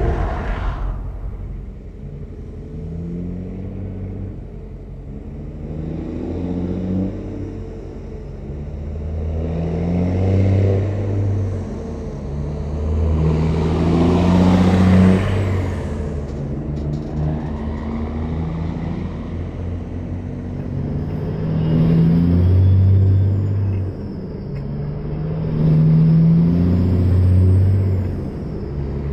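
Diesel engines of Peterbilt 379 semi trucks pulling heavy loads, their note repeatedly climbing and dropping back as they work up through the gears. Loaded rigs pass close by, with a rush of tyre and road noise loudest about halfway through.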